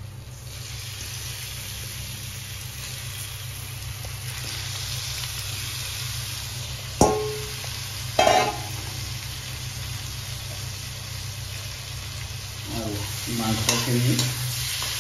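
Marinated pork pieces frying in hot oil with onion, ginger-garlic paste and spices: a steady sizzle that builds over the first few seconds, while the meat is stirred. About seven seconds in a utensil knocks sharply against the pan, with another short clatter a second later.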